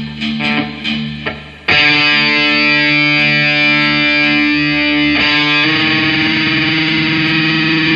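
Electric guitar played through distortion: a few separate picked notes, then about a second and a half in a loud distorted chord is struck and held, moving to another held chord about five seconds in.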